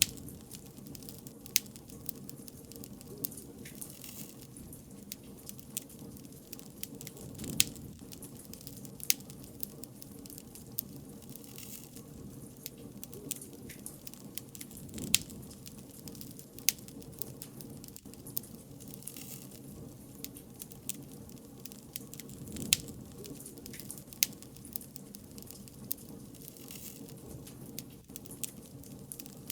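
Wood fire crackling: sharp pops and snaps scattered over a steady low rush of burning, with louder flurries of pops every seven or eight seconds.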